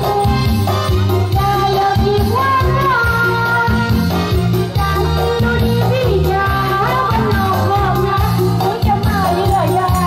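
Background music with a steady bass beat and a gliding melody line.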